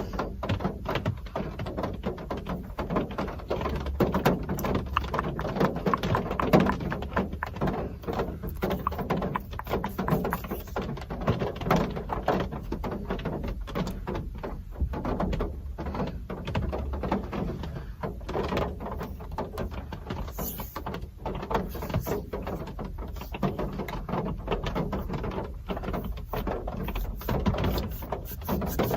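Real rain pattering: a dense, irregular stream of drops ticking on a hard surface, with no letup.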